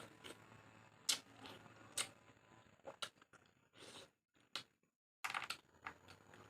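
Quiet eating sounds: scattered soft clicks and smacks of chewing and handling food. The sound drops to dead silence for about a second just past the middle.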